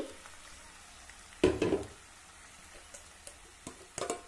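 Marinated chicken legs tipped from a steel bowl into a pot of hot fried onions: one short loud clatter and sizzle about a second and a half in, then soft sizzling with a few light taps.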